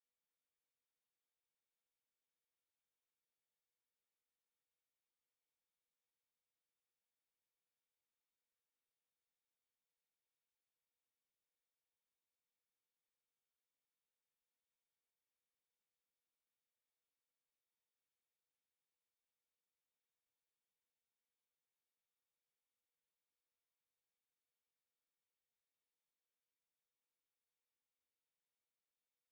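Steady, high-pitched pure sine test tone at 7777 Hz, held unchanging at constant loudness, used to check treble response.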